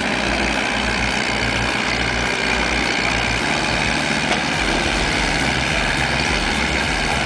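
Heavy equipment's diesel engine running steadily, with a low, even pulse about twice a second.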